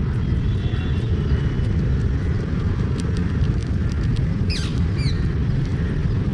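Squirrel gnawing, heard as scattered faint sharp clicks over a loud, steady low rumble. Two short falling chirps come about four and a half seconds in.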